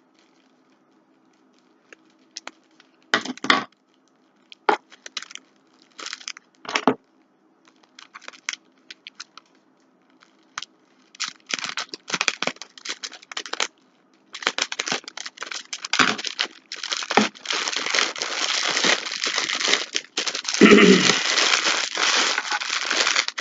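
A clothing package being opened by hand: scattered crinkles and small tears at first, then from about halfway, continuous crinkling and tearing of the wrapping, loudest near the end.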